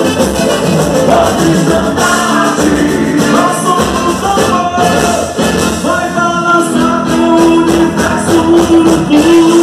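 Loud live boi-bumbá toada over the venue's PA: a sung melody carried over a band and driving percussion.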